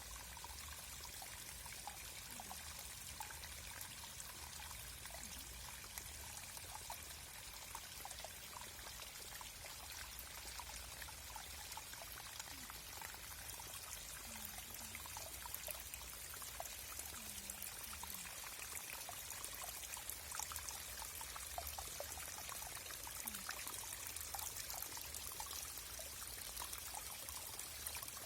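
Forest stream flowing: a steady trickle and babble of running water with many small splashes.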